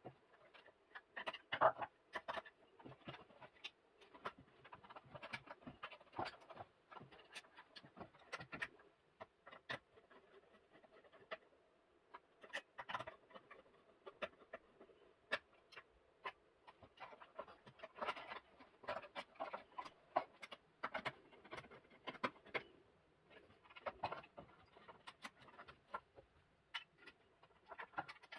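Irregular small clicks, scrapes and rustles of hand wiring: copper wires being bent and pushed into the screw terminals of a plastic switch enclosure, and a screwdriver working the terminal screws.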